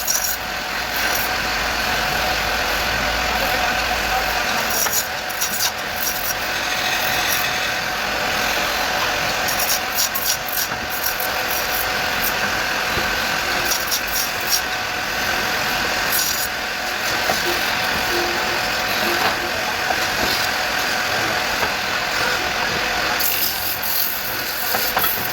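Wood lathe running steadily while wood is turned on it: a steady hum and hiss with scattered sharp ticks.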